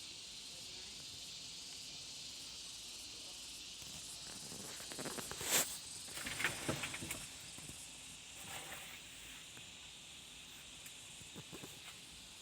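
A steady high-pitched hiss, like insects chirring outdoors, with a few short clicks and knocks about halfway through.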